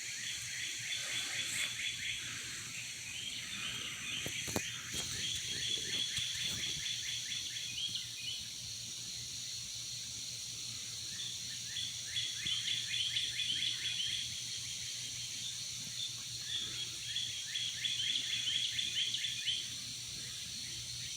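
Birds singing outdoors: trains of rapid, evenly repeated chirps lasting a few seconds each, coming several times with short gaps, over a steady high-pitched background hiss.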